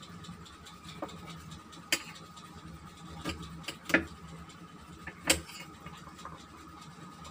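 Small knife cutting okra pods into pieces: a handful of sharp, short clicks as the blade snaps through the pods, the loudest about four and five seconds in, over a faint steady hum.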